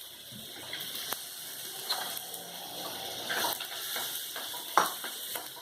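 A cooking utensil knocking and scraping against a pan while food cooks in it: a few sharp clicks over a faint hiss, the loudest knock near the end.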